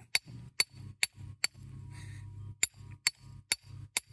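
Hammer striking a steel chisel set into a rock, sharp ringing metal clinks about twice a second with a short pause in the middle. The rock is not splitting; it is taken for a solid rock rather than a hollow geode.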